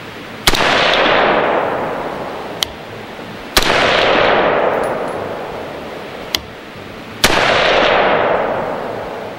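Three rifle shots from an AR-15, about three seconds apart. Each is a sharp crack followed by a long echo that fades over two to three seconds. A fainter sharp click comes about a second before the second and third shots.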